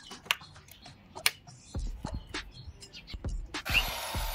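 Clicks and knocks of a plug being pushed into an extension board and a drill being handled, then about three and a half seconds in a Dong Cheng DZJ02-13 500 W hammer drill's motor starts and runs with a rising whine.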